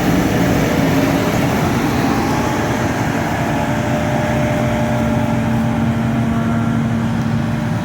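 Large diesel harvest machinery running at close range: a steady, loud engine drone, with a steady hum setting in about two seconds in.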